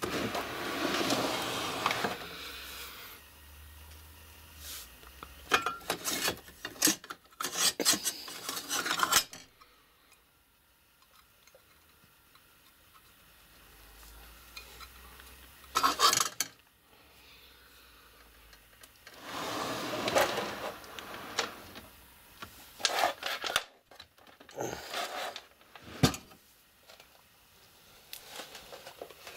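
Handling noise: hands rubbing, scraping and tapping on plastic and metal parts, in several bursts of scraping with sharp clicks and quiet gaps between.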